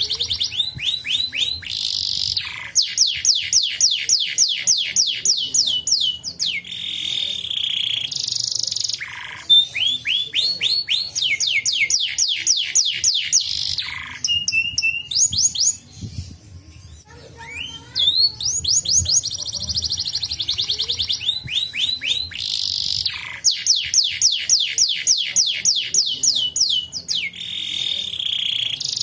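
Domestic canary singing a long song of fast high-pitched trills: runs of quickly repeated falling chirps and rolls, with a short break about halfway through.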